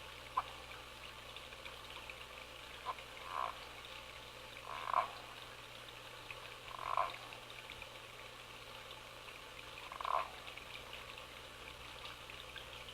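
Frogs calling: about half a dozen short calls, spaced irregularly a second or more apart, over a steady high-pitched background chorus.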